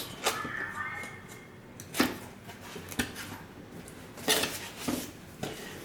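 A product box being opened and its packaging handled: scattered knocks and scrapes, with sharper knocks about two, three and four seconds in.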